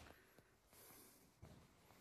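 Near silence: room tone, with a few faint low thumps.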